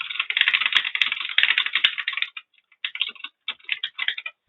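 Very fast typing on a computer keyboard: a dense rattle of keystrokes for about two seconds, then a short pause and a few quicker bursts of keys.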